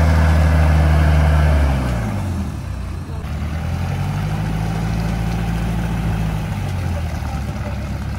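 An off-road 4x4's engine is revved and held at steady high revs, falling back about two seconds in. It is then raised and held again for a few seconds before easing off.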